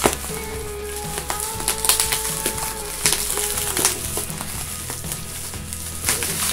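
Packing material crackling and rustling as an item is unwrapped by hand, with scattered sharp crackles, over background music.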